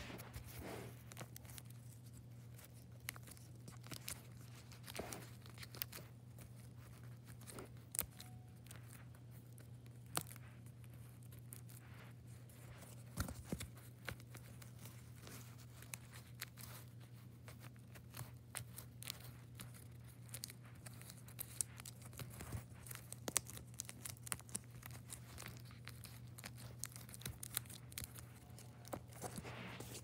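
Homemade cardboard-and-tape fidget crinkling and crackling in irregular faint clicks as fingers press its taped bubbles.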